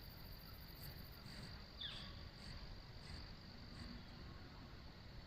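Faint woodland ambience: a steady, thin high-pitched insect-like hum with faint regular pulses, a low rumble underneath, and one short falling chirp about two seconds in.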